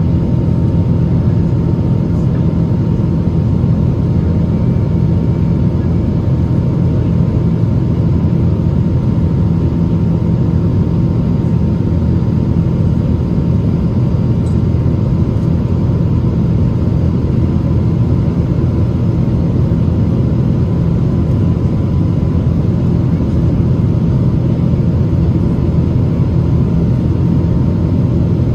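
Steady cabin noise of a Boeing 777-200ER climbing after takeoff: a heavy low rumble from its Pratt & Whitney PW4000-series turbofans and the rush of air, with a thin steady whine above it.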